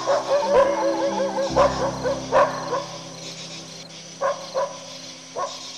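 A dog yipping and yelping: a fast run of short high yips in the first second or so, then single sharp yelps spaced through the rest, over steady background music.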